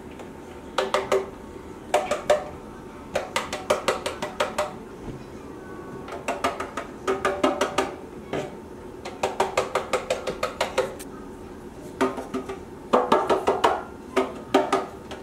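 Metal loaf pan tapped and shaken by hand in repeated quick strings of light taps, knocking flour around its buttered inside to coat it against sticking.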